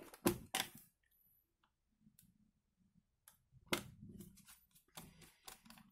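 A few sharp plastic-sounding clicks with faint rustling between long quiet stretches: hands working on a laptop's opened underside.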